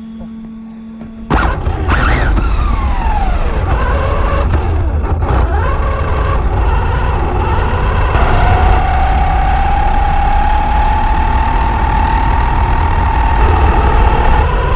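Electric RC buggy (Kyosho Inferno MP9e) driving on asphalt, heard from a camera fixed to its body: after a faint steady hum it pulls away suddenly about a second in, its motor whine sliding down and up with the throttle over heavy tyre and road rumble, then holding a steady, slowly rising whine at speed.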